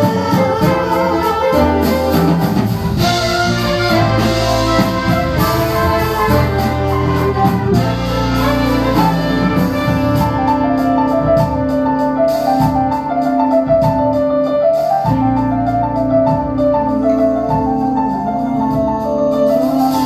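Live jazz big band playing an instrumental passage, saxophones and brass over piano, with cymbals keeping a steady pulse. From about eight seconds in, the horns settle into a repeating figure of short notes over a held low note.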